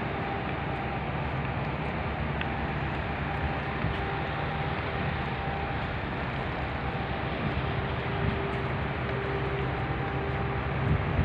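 Steady low rumble of vehicle noise with a faint steady hum on top, with no distinct events.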